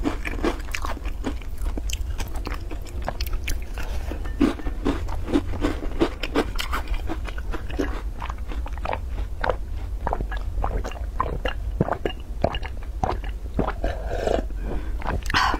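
Close-miked mouth sounds: chewing a milk-soaked crisp cookie, then swallowing in a run of wet clicks while drinking the milk from a glass bowl.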